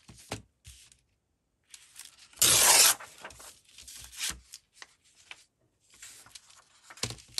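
Paper scraps being handled and rustling, with one loud rip of paper lasting about half a second, a little over two seconds in.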